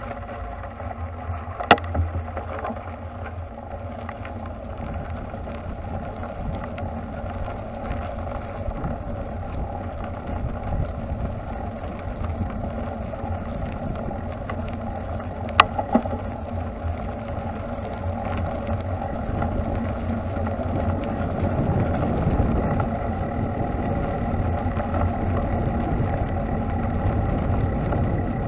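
Ride noise from a bicycle on a park path: steady rumble of tyres rolling on the surface with wind on the microphone, getting a little louder past the middle. Two sharp clicks cut through, one about two seconds in and one a little past halfway.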